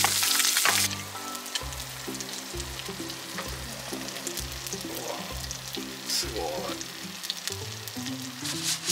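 Baguette slices sizzling in a hot sandwich press over a gas canister stove. The sizzle is loud for about the first second, then quieter, with a fainter crackle under background music with a steady beat.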